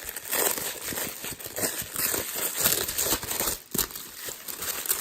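Packaging crinkling and rustling in irregular bursts as a knife is unwrapped by hand.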